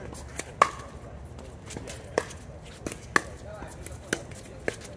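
Pickleball rally: sharp pops of paddles striking a hard plastic pickleball, with the ball bouncing on the court. There are about seven irregular hits, the loudest about half a second in.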